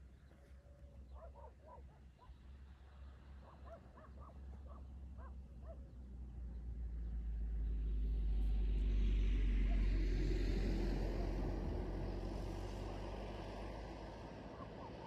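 A dog barks faintly a few times, then a car approaches along the road with a swelling tyre and engine rumble, passes about nine or ten seconds in, and fades away.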